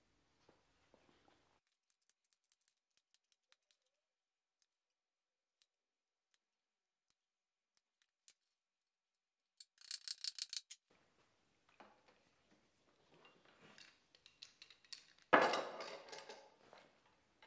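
Wood-on-wood clicks and knocks from loose wooden tenons being handled and pushed into the mortises of pine boards: a quick rattle of clicks about ten seconds in, then scattered knocks with one sharp knock near the end.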